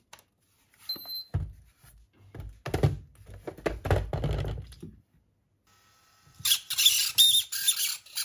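Savox steering servo of an RC crawler, running with its gear cover off: knocks and handling thumps in the first few seconds, then a loud, high-pitched squeal with a warbling tone from about six and a half seconds in. The squealing is the sign of a defective servo, whose gear teeth are nonetheless intact.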